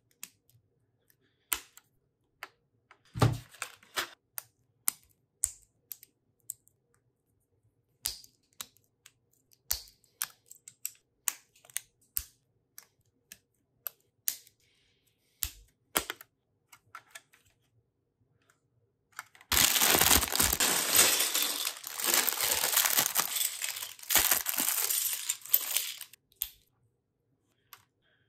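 Plastic Lego bricks clicking and snapping together as they are handled and pressed into place. About twenty seconds in, a plastic bag of Lego pieces is torn open and the pieces spilled out, crinkling and rattling for about six seconds.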